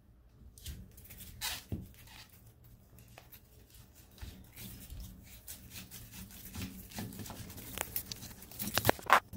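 Scattered light clicks, taps and rustling of hands handling plumbing tools and pipe parts, with a few sharper knocks near the end, over a steady low hum.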